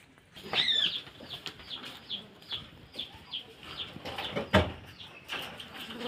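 Indian ringneck parakeet calling: one loud call about half a second in, then a run of short, falling chirps at about two to three a second. A single sharp knock sounds a little past four and a half seconds.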